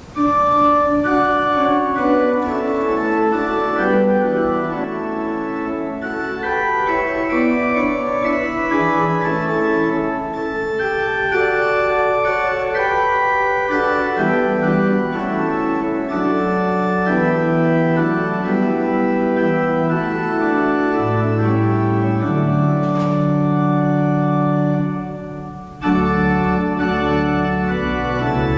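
Organ music: slow held chords over deep bass notes. It starts abruptly, and about 25 seconds in a phrase fades out briefly before the next one begins.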